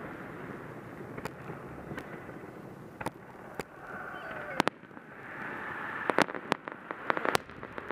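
Aerial fireworks shells bursting in a series of sharp bangs over a steady background noise. The bangs come closer together and louder in the last couple of seconds.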